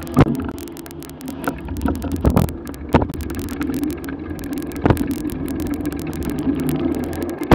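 A vehicle engine idling steadily while the vehicle creeps along at walking pace, with scattered sharp clicks and knocks.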